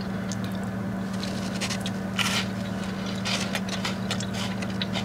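Biting into and chewing a warm chocolate chip cookie, its crispy outer edge crunching in short crackles, over a steady low hum.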